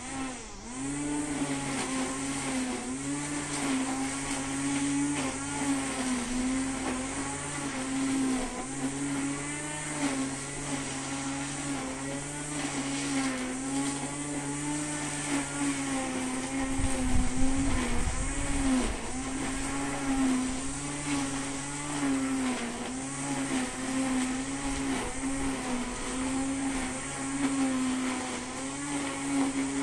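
Brushcutter (string trimmer) engine running at high speed, its pitch wavering up and down as it cuts grass. A short low rumble comes about two-thirds of the way through.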